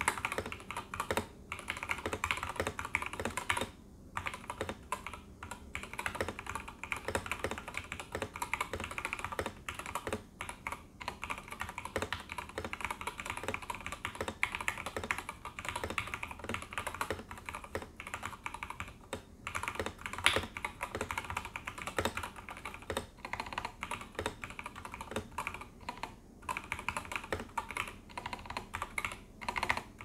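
Fast continuous typing on a TKL mechanical keyboard with Gateron KS3 Black linear switches and PBT dye-sub keycaps: a dense run of key clacks, broken by a few brief pauses.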